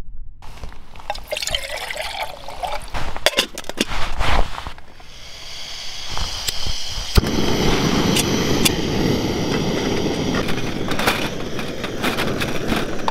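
Gas canister camping stove: knocks and clatter of the pot and stove being handled, then about halfway through the burner lights and keeps running with a steady hiss under the pot, a few sharp clicks over it.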